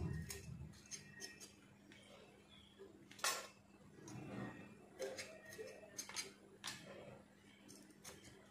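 Light clicks and taps of a kitchen knife slicing pieces of moringa drumstick held in the hand over stainless steel plates, with one sharper click about three seconds in.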